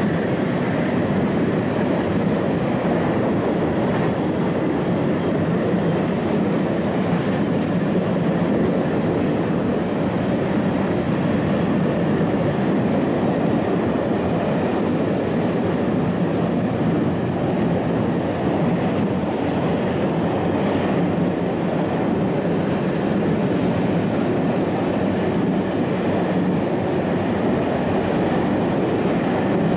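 Container wagons of a freight train rolling past, a steady rumble of steel wheels on the rails.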